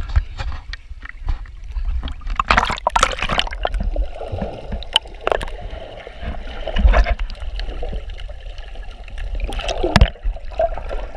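Seawater gurgling and sloshing around a camera held at and just under the surface, muffled while submerged, with louder splashing about two and a half seconds in and again near the end.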